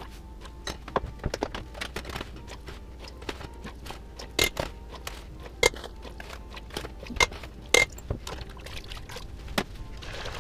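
Irregular clicks, scrapes and clinks as sugar is added to dandelion tea in a large stainless steel stockpot, with four sharp ringing metallic clinks against the pot between about four and eight seconds in. A steady low hum runs underneath.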